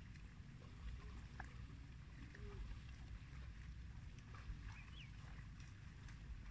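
Quiet outdoor ambience: a steady low rumble with a few faint, brief bird chirps, one about a second and a half in and another about five seconds in.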